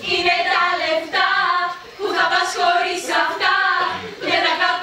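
A group of female voices singing together in unison, in short phrases about a second long.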